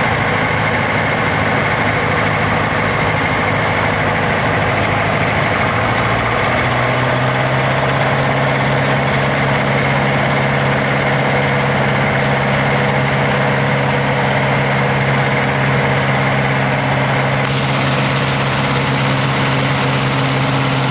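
Aeronca 7AC Champion light aircraft in flight, heard from the cockpit: the steady drone of its piston engine and propeller over a rush of airflow. About six seconds in the engine note steps up slightly, and near the end the hiss grows brighter.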